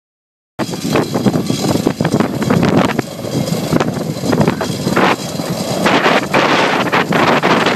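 Outdoor apron noise: wind buffeting the microphone over a steady engine rumble, cutting in suddenly about half a second in after silence.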